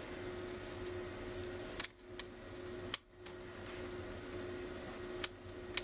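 A handful of sharp clicks and taps, spaced irregularly, as a Phillips screwdriver works the corner screws out of a laptop's screen assembly, over a steady low electrical hum.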